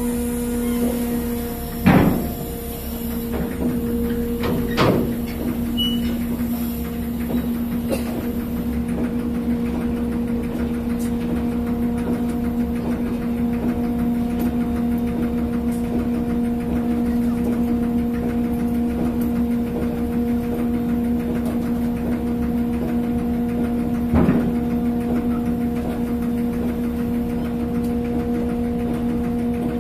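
Ferry's engines running with a steady drone: a low hum with a couple of higher overtones over a rumble. Three sharp knocks cut through it, the loudest about two seconds in, another about five seconds in and one more late on.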